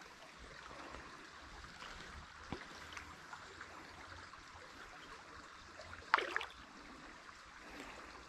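Shallow gravel stream trickling, a faint steady ripple of running water. A short, sharper sound stands out about six seconds in.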